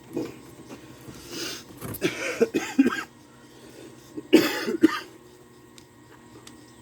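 A person coughing several times in short bursts, the loudest pair of coughs about four and a half seconds in.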